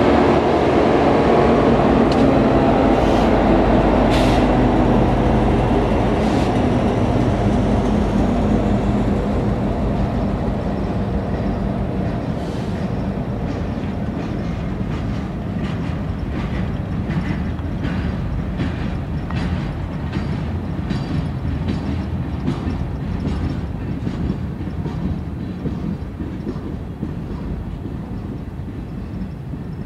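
Freight train passing: the EMD diesel locomotives' engines drone loudly over the first several seconds and fade as they move off, then the freight cars roll by with regular clicking of wheels over rail joints, slowly growing quieter.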